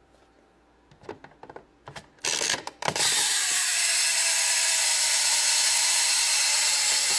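Toy toaster in use: a few light plastic clicks as it is loaded and set. About three seconds in, its toasting sound starts: a steady, dense ratcheting buzz that runs until the toast is about to pop up.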